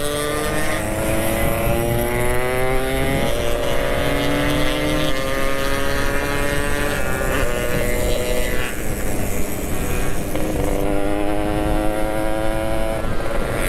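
Yamaha RX-King's two-stroke single-cylinder engine accelerating hard, its pitch rising in each gear and dropping back at each of about four upshifts.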